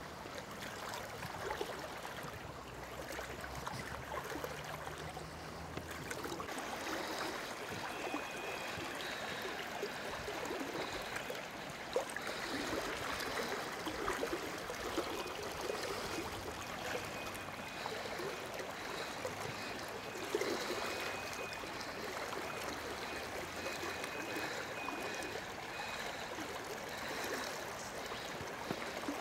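Steady flow of a shallow, fast river current, gurgling and rushing.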